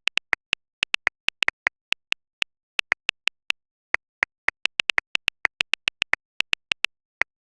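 A run of short, high electronic blips or clicks, irregularly spaced at a few per second, alternating between two close pitches, with dead silence between them.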